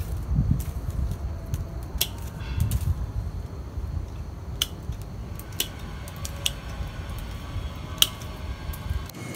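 Pruning scissors snipping twigs on a ficus bonsai: about six sharp single clicks, a second or two apart, over a low steady background rumble.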